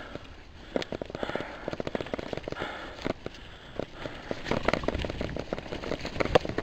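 Full-suspension mountain bike ridden over a rough trail: dense, irregular clicking and rattling from the tyres on the ground and the bike's parts, with a few harder knocks near the end.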